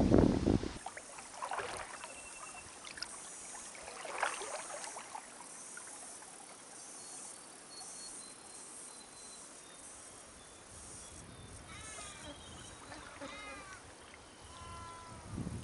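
Kayak paddle strokes in the water, loudest right at the start. Over the last few seconds an animal, most likely a bird, calls repeatedly in short falling notes.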